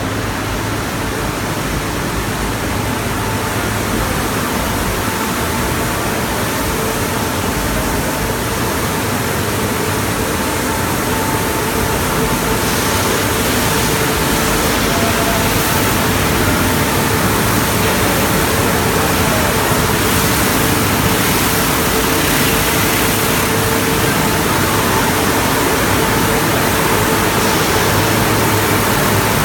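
Automatic car-wash tunnel with water jets spraying cars in a steady, loud rush and a faint steady machine hum beneath. The spray grows louder about twelve seconds in.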